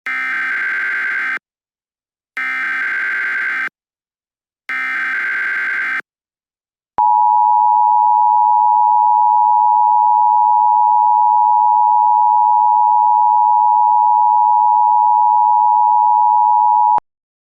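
Emergency Alert System SAME header: three short bursts of buzzy digital data tones, about a second apart. They are followed by the EAS two-tone attention signal, 853 and 960 Hz sounded together, held steady for about ten seconds and then cut off.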